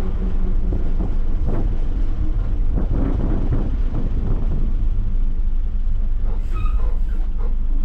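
A bus engine running steadily as the bus drives, with rattles and knocks from the vehicle.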